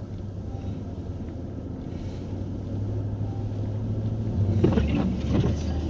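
Steady low drone of a car's engine and road noise heard from inside the cabin while driving in a blizzard, growing somewhat louder in the second half.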